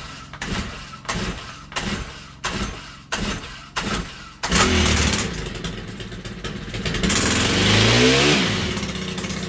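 Stihl HT101 pole saw's 4-MIX four-stroke engine being pull-started on a freshly replaced carburetor: several evenly spaced pulls on the starter rope, then the engine catches about four and a half seconds in and runs. Near the end it is revved up and drops back.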